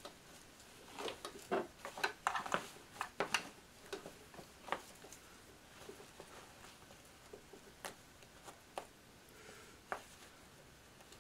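Tear-away embroidery stabilizer being torn and picked off an embroidered baseball cap, with the cap handled: a run of short, irregular ripping and crackling sounds, denser in the first few seconds and sparser later.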